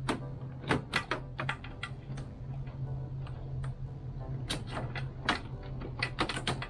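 Irregular sharp clicks and taps of hands and a tool working at a stubborn fastener on a car's front bumper cover, coming thicker in the last couple of seconds, over a steady low hum.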